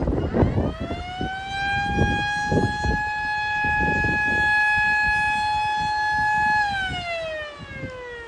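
MS-490 outdoor warning siren winding up to a steady, high wail, holding its pitch for several seconds, then winding down in pitch near the end. Wind gusts buffet the microphone underneath.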